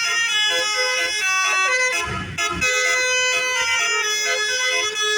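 A bus's basuri multi-tone musical horn playing a 'telolet' tune: held notes stepping from one pitch to the next like a melody.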